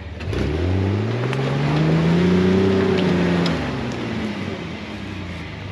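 Off-road 4x4's engine revving up under throttle. Its pitch climbs for about two seconds and holds, then drops back toward idle about three and a half seconds in.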